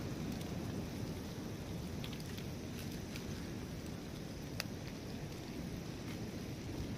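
Steady low rumble of ocean surf, with scattered faint crackles from eggs frying in a pan on a gas-canister camp stove.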